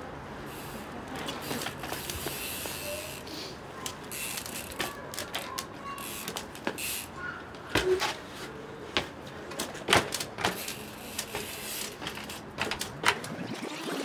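Ghost Riot enduro mountain bike knocking and clattering on brick ledges as it is hopped along them, with several sharp knocks of the tyres landing, the loudest about 8, 10 and 13 seconds in.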